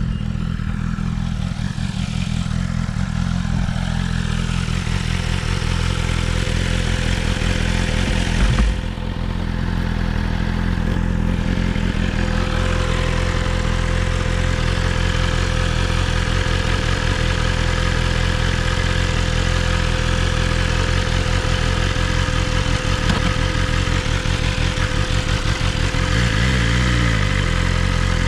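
BMW S1000RR inline-four engine running steadily while the motorcycle is ridden at low speed, with a brief louder burst about a third of the way in. Partway through, a steady whirring tone sits on top of the engine; the rider hears an unexplained whir or buzz from the bike around 25 to 30 mph.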